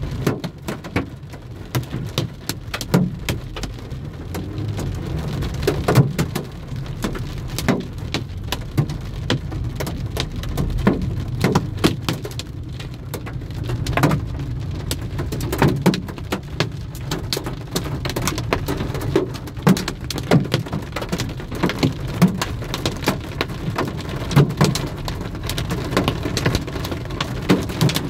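Heavy summer rainstorm: rain falling hard, with many separate drops striking close by as sharp irregular ticks over a steady low rumble.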